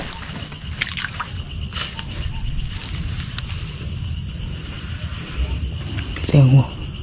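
Steady high-pitched trilling of insects in a night chorus, over a low rumble of handling noise with a few faint rustling clicks; a brief voice sounds near the end.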